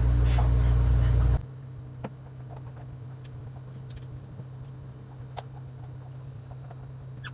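A loud low hum with a voice over it cuts off suddenly about a second in. What follows is a faint steady hum and a few light clicks and knocks as an empty glass aquarium tank is shifted and turned by hand.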